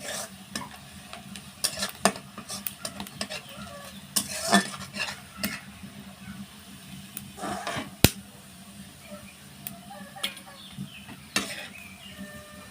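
A utensil stirring and scraping in a cooking pan, with irregular clinks and knocks. The sharpest clink comes about eight seconds in.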